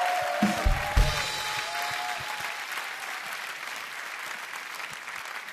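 Studio audience applauding, the applause slowly fading. In the first second or so, a few held tones and two low thumps sound over it.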